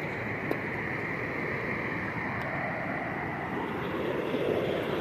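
Steady rush of water falling over a river waterfall.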